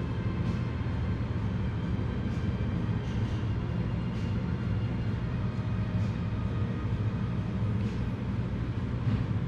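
Steady low mechanical hum with a few faint ticks scattered through it.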